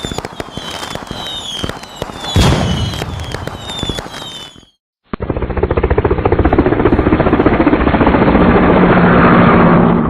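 Action-film gunfire sound effects: a volley of sharp shots mixed with short falling whistles, then a brief break, then about five seconds of dense, rapid, continuous fire.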